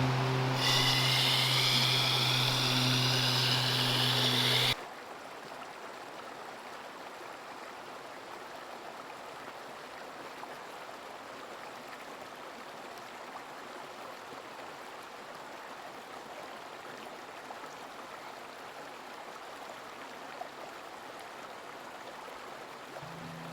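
Stream water running steadily with an even rushing sound. For the first few seconds a louder steady hum with a bright hiss lies over it, then cuts off abruptly about five seconds in.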